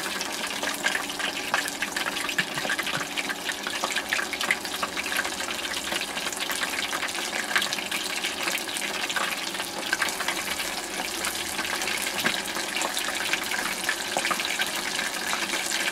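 Chicken pieces deep-frying in a small saucepan of hot oil: steady, dense sizzling with fine crackling.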